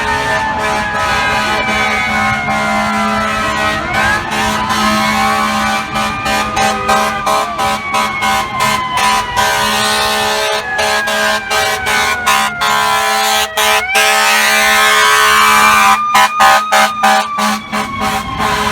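FDNY fire truck siren wailing in slow rising and falling sweeps, with its air horn sounded in many quick repeated blasts over it, the blasts coming thickest and loudest near the end.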